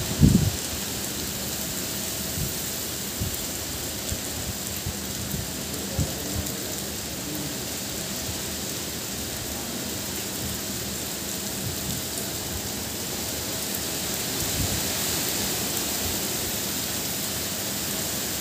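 Heavy rain falling steadily on paving and foliage, a constant hiss. A short low rumble comes right at the start, and a few faint low thumps follow later on.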